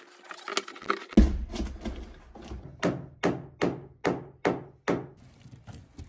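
Hammer driving a cable staple into a wooden framing member to fasten heavy electrical cable. One heavier knock comes about a second in, then a run of about six even hammer blows, two or three a second.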